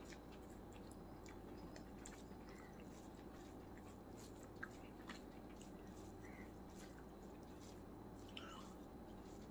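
Faint eating sounds of chicken biryani being eaten by hand: soft, irregular clicks of chewing and of fingers mixing rice on a plate, with a couple of sharper ticks near the middle, over a steady low background hum.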